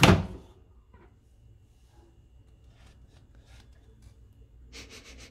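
Microwave oven door pulled open by its handle, its latch letting go with a sharp clunk at the start. Faint handling sounds follow as the food is lifted off the turntable, with a few small rustles and clicks near the end.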